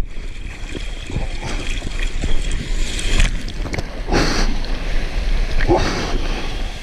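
Wind rumbling on the microphone over sea water sloshing, with two louder splashes about four and six seconds in.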